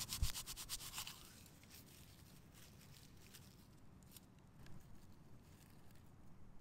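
Dry birch bark handled with a knife and fingers: a quick run of crisp scratchy strokes with a soft thump in the first second as the fine bark shavings are scraped and gathered up, then only faint rustles and small clicks.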